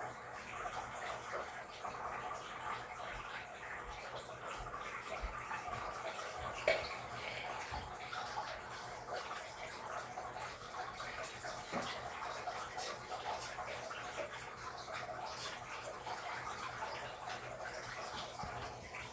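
Steady running or splashing water, with a brief tick about seven seconds in.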